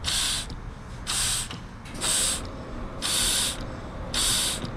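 Five short puffs of air, about one a second, blown by mouth into the vent hose of a 2011 Jeep Liberty's ESIM evap switch to push its plunger and close the switch.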